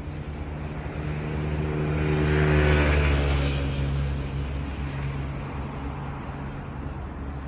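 A motor vehicle driving past, its engine and tyre noise swelling to a peak about two and a half seconds in, then fading away.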